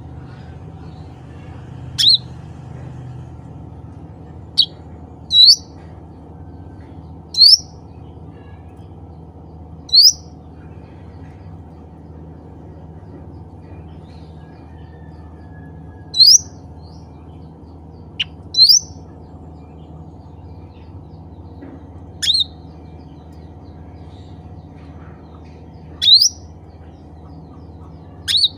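Cucak ranting bulbul giving short, sharp, upward-sweeping single calls, repeated at irregular gaps of a few seconds, over a steady low hum.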